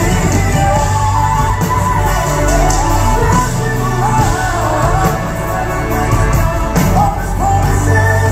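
Live band playing a pop worship song, with a male lead singer holding long, bending notes over steady bass, keyboards and drums.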